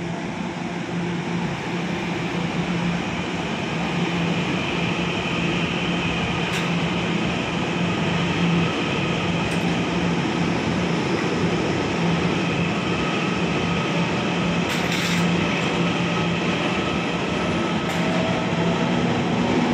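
Taiwan Railways Puyuma Express, a TEMU2000 tilting electric multiple unit, pulling out of an underground platform, its running noise growing louder as it gathers speed. A steady low hum runs under the rumble, with a few faint clicks.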